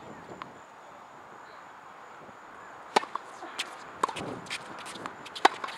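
Sharp knocks of tennis balls striking racket strings and the hard court, several in a scattered run through the second half; the two loudest come about three seconds in and near the end.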